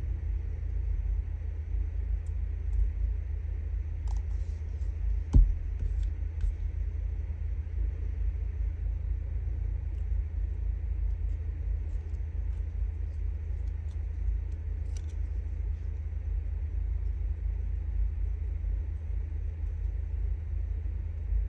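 A steady low background rumble, with one sharp click about five seconds in.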